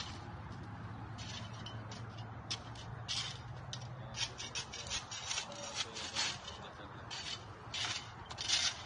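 Handling and footstep noise from someone walking on dry dirt while filming with a phone: irregular short scrapes and rubs, growing more frequent from about three seconds in. A low hum underneath fades out about halfway through.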